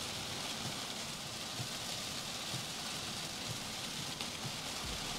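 Heavy rain pelting the windshield and roof of a moving vehicle, heard from inside the cabin as a steady hiss.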